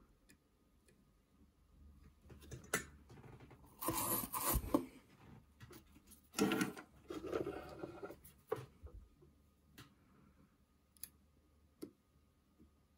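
Close handling noises from wiring work on a guitar scratchplate: two bursts of rustling and scraping about four and six seconds in, with a few light clicks.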